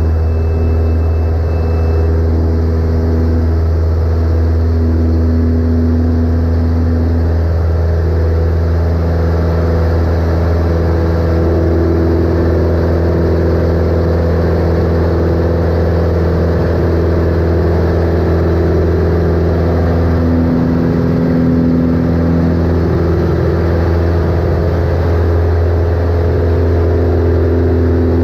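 Carbon Cub light aircraft's piston engine and propeller running steadily in cruise, heard from inside the cockpit as a loud, even drone; the pitch of the drone shifts slightly a couple of times.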